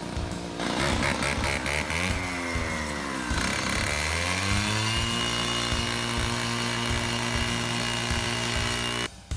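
Gas-powered 14-inch cut-off saw with a diamond blade cutting a precast concrete panel. The engine comes up to speed, its pitch sags as the blade bites into the concrete, then climbs back and holds steady at full speed. It stops abruptly near the end.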